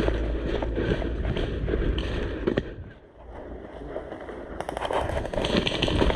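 Airsoft guns firing: irregular sharp cracking shots, a short lull, then a dense rapid string of shots near the end.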